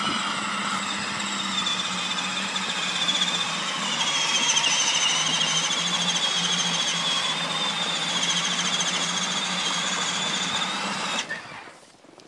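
Power Wheels ride-on's electric drive motors and gearboxes whining steadily under load as the tracked snowmobile conversion drives through snow, the pitch wavering slightly. The whine cuts off suddenly near the end.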